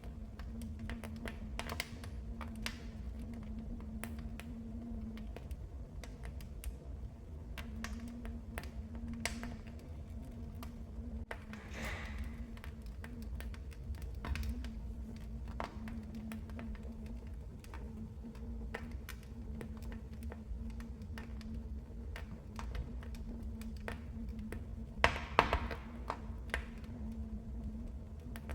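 Wood fire crackling in a fireplace: irregular small pops and snaps over a low rumble of burning, with a few louder pops near the end.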